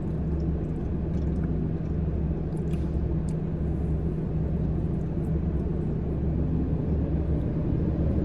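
Steady low vehicle rumble with a constant hum.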